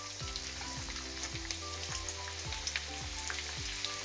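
Chopped cabbage sizzling steadily in hot oil in a kadai (Indian wok).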